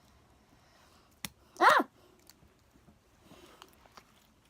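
A sharp click about a second in, then a girl's short, loud cry of "Ah!", followed by a few faint clicks.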